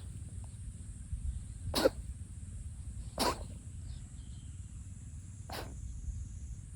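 Brown tabby cat sneezing three times in a row, short sharp sneezes about one and a half to two seconds apart, part of a sudden run of repeated sneezing.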